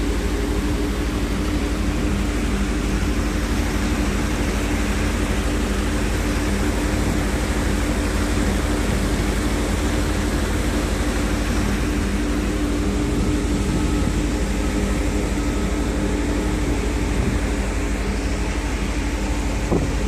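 Sand washing plant running: a steady machine hum with several constant low tones, over a continuous rush of muddy water spilling over the tank's overflow weir.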